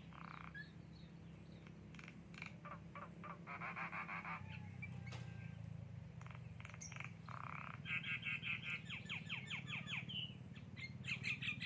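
Javan myna (jalak kebo) calling: rapid chattering runs of short repeated notes, twice, with scattered whistled slides and clicks, over a steady low hum.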